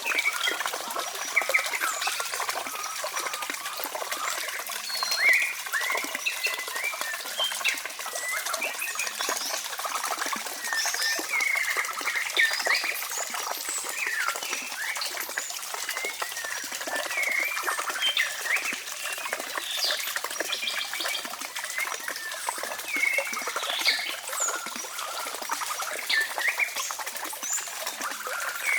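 Birds chirping: many short calls overlapping throughout, over a steady hiss.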